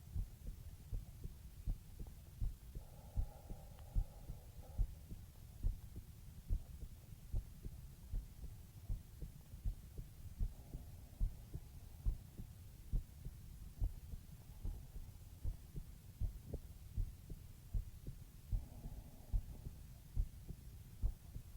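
A man's heartbeat heard close up through the chest: steady, regular low thumps, about one beat a second, with a low hum beneath.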